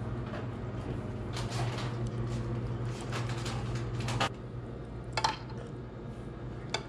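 Wet handling of a whole butterflied tilapia in a glass baking dish of marinade: the fish being turned and rubbed by hand, then a spoon clinking against the glass dish a few times, over a steady low hum.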